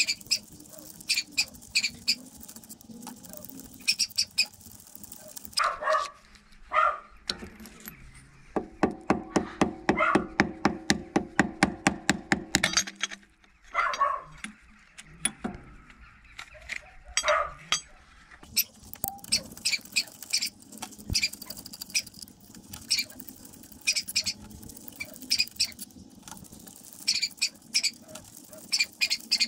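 Hand tools clicking and knocking against metal engine parts during disassembly, with a loud steady run of rapid ratcheting clicks, about seven a second, from about a third of the way in for roughly four seconds. A few short barks from a dog come in between.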